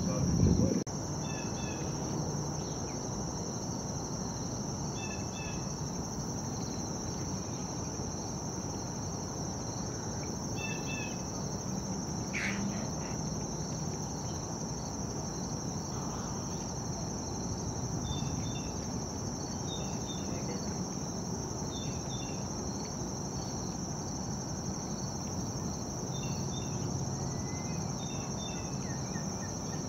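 Steady, high-pitched insect trill, unbroken throughout, with faint short bird chirps now and then and one brief louder call about twelve seconds in. A short low rumble sounds in the first second.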